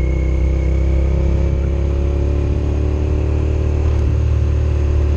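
Motorcycle engine running at a steady pitch while the bike cruises along.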